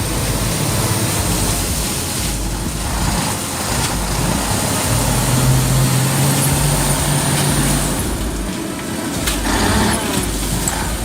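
Heavy truck engine running steadily under load, with a low engine note that swells for a few seconds in the middle.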